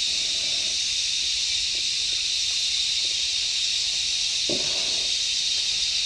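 Steady, high-pitched drone of a chorus of forest insects, cicadas or crickets, running on without a break.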